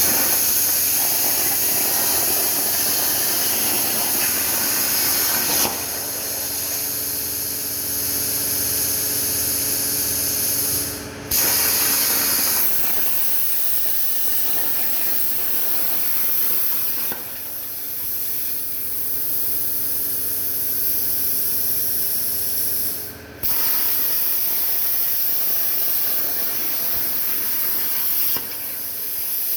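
CNC plasma cutter torch hissing steadily as it cuts, with a faint machine hum beneath; the hiss breaks off briefly twice and starts again.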